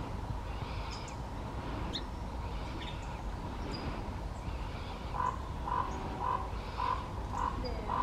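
Woodland ambience of faint, scattered bird calls over a steady low rumble. From about five seconds in, an animal gives a run of six short low calls, about two a second.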